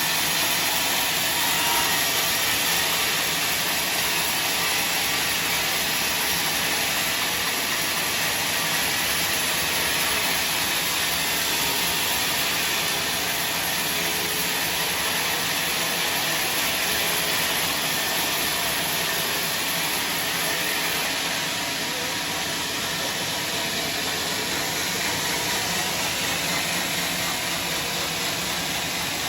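Sawmill machinery running steadily, a continuous even noise with no breaks or separate knocks.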